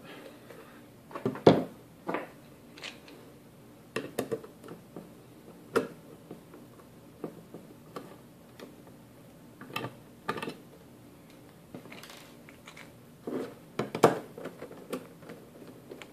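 A magnetic-tip screwdriver works screws out of the aluminium case of a PC Engines APU router, with scattered light clicks and knocks of metal on metal as the case is handled. Two sharper knocks stand out, about one and a half seconds in and near the end.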